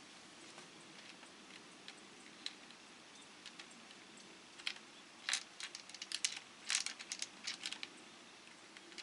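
A run of sharp clicks and light taps, a few scattered at first, then bunched together from about five to eight seconds in, over a faint steady hum.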